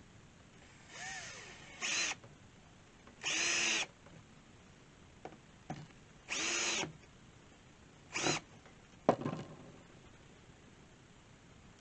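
Power drill run in about five short trigger bursts, the motor whining up and down in pitch each time, drilling into the air rifle's stock to seat a sling-mount stud. A sharp knock follows a little over 9 seconds in.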